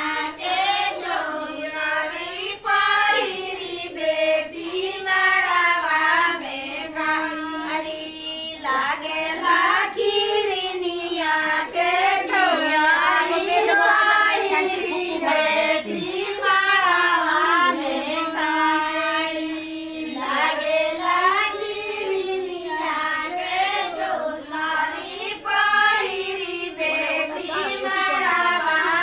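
Group of women singing a traditional Madhesi wedding song (biha geet) together, their voices following one melody line.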